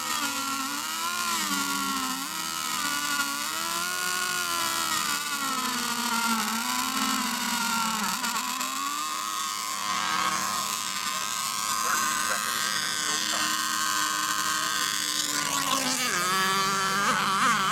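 Engines of several radio-controlled racing boats running out on the lake, their whine rising and falling in pitch as they race laps, a few engines overlapping.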